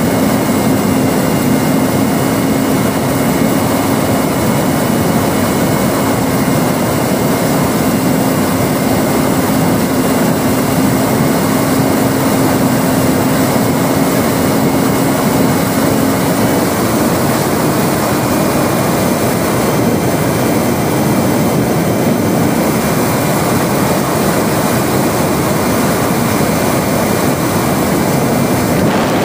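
Electric motor and propeller of a ParkZone RC Spitfire model in flight, picked up by its onboard camera: a steady whine over rushing air, the pitch dropping slightly a little past halfway.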